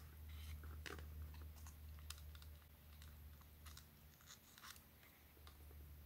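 Faint, scattered small clicks and scratches as a Phillips screwdriver loosens the terminal screws on a doorbell's back plate and copper wire leads are handled, over a faint low hum.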